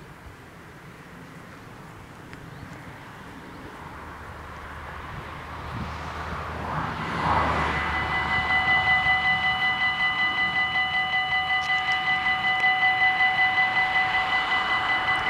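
Level-crossing warning bells start ringing about halfway through: a loud electronic ring of several fixed tones, pulsing rapidly and evenly, the signal that the crossing has activated for an approaching train. Before it, a faint rush of noise slowly grows louder.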